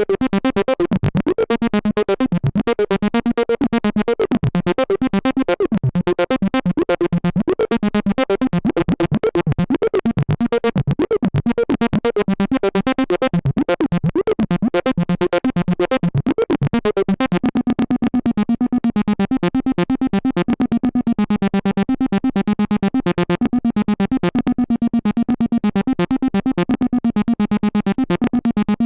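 Behringer System 100 analog modular synthesizer playing an acid bass line: a fast, even run of repeated bass notes with a changing, buzzy upper tone.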